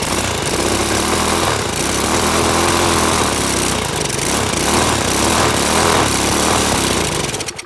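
Power drill spinning a go-kart's small engine over by its starter cup: the drill whirs and the engine turns over steadily without catching. It stops abruptly near the end.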